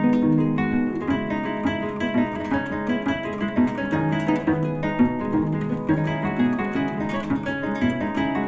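Instrumental music on plucked strings: a steady flow of picked notes over a repeating lower line.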